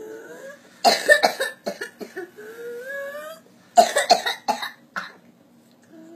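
Whooping cough (pertussis) coughing fit: runs of rapid, harsh coughs, each broken by a long indrawn breath that rises in pitch, the characteristic whoop.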